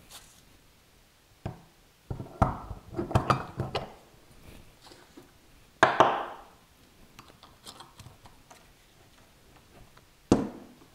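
Knocks and clinks of a steel stack dado set and its washer being handled and set onto a 3D-printed holder post: a run of clattering about two seconds in, a louder sharp clink with a brief ring near the middle, and another sharp knock near the end.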